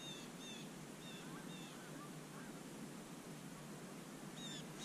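Faint bird calls: short, high chirps, several in quick pairs, near the start and again near the end, over a faint steady background hiss.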